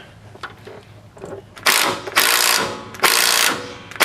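Hand ratchet wrench tightening a sway bar end link nut: a few faint clicks, then from about a second and a half in, repeated half-second bursts of fast ratcheting clicks, one for each back-swing of the handle.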